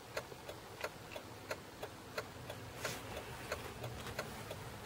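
Car's hazard-light flasher ticking steadily, about three faint clicks a second, heard inside the cabin of the broken-down car.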